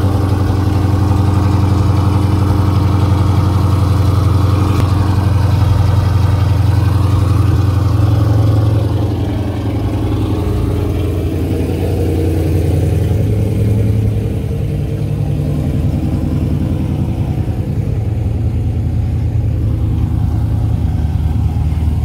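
Dodge Challenger SRT's V8 engine idling steadily with a low, loud exhaust note, the level easing slightly about nine seconds in.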